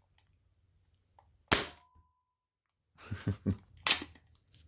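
A spring-powered foam-rocket pistol fires with one sharp snap about one and a half seconds in. It is followed later by several lighter clicks and knocks of the blaster being handled and reloaded.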